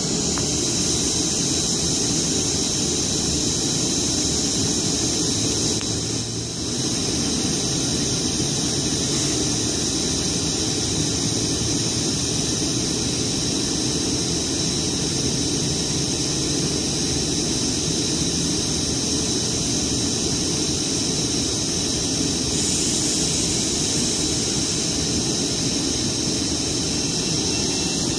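Long Island Rail Road electric passenger train standing at a station platform, its on-board equipment running with a steady hum and hiss.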